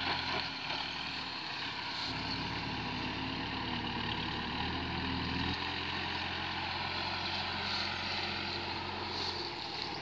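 Diesel engine of a Manitou Maniscopic telehandler running steadily as it carries a wrapped round bale in its bale clamp. The engine note shifts about two seconds in and again around halfway.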